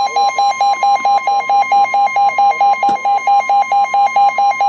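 NOAA Weather Radio alert tones: a steady high tone, the alarm that signals a warning is coming, with a second, lower tone beeping rapidly over it, about five beeps a second. A single sharp click sounds about three seconds in.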